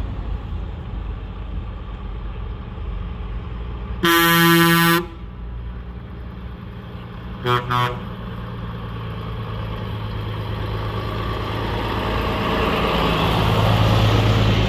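Old vehicles' horns sounding over steady engine noise: one loud blast about a second long, then two short, lower-pitched toots a few seconds later. The engine noise grows louder toward the end as a vehicle draws near.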